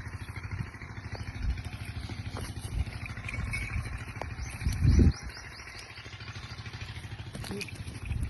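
A small engine running steadily with a fast, even putter. A bird chirps rapidly about four seconds in, and there is a louder low thump near the five-second mark.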